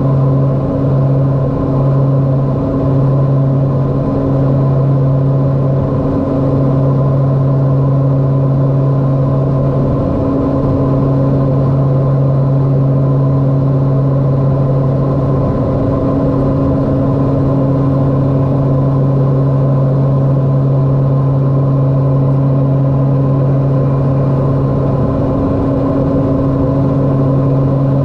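Cockpit drone of a LET L-410's twin turboprop engines and propellers in flight: a loud, steady hum. It pulses slowly for the first few seconds, then settles into an even drone.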